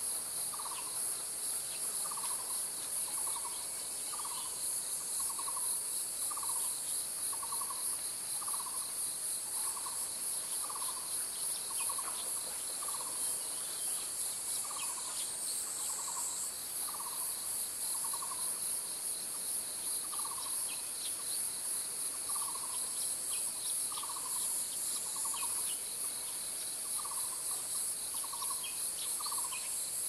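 Taiwan barbet calling: a long, even run of short low notes, about three every two seconds, over a steady high-pitched buzz.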